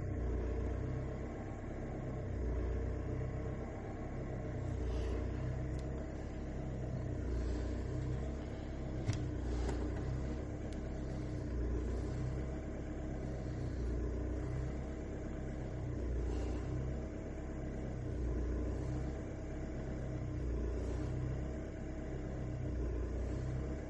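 Skoda BLS 1.9 TDI diesel engine running unevenly, its low rumble rising and falling every two seconds or so, with a single sharp click about nine seconds in. The rough running goes with its hard starting when hot, for which diagnostics find no fault.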